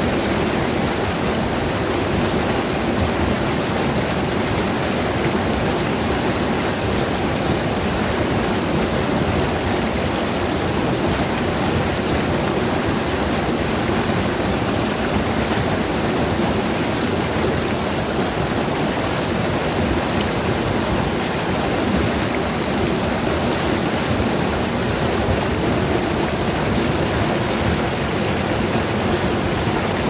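Mountain stream rushing over rocks in a small cascade, a steady, even rush of water.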